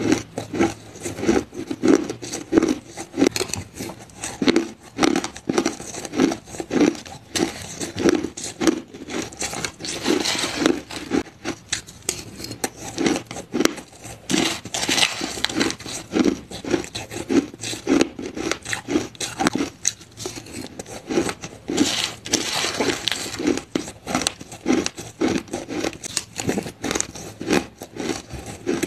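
Close-miked chewing and crunching of crushed ice in the mouth, a steady run of crisp crunches at about two a second, with the metal spoon now and then scraping and scooping ice in the plastic tub.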